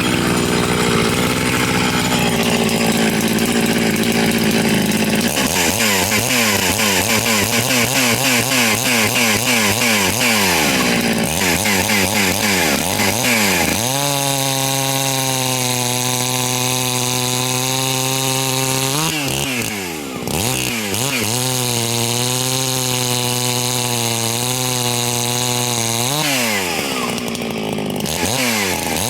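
Farmertec MS660, a Chinese clone of the Stihl MS660 two-stroke chainsaw, running at full throttle as it bucks through a big log. Its pitch wavers and sags under the load of the cut, holds steady between stretches, and dips briefly twice.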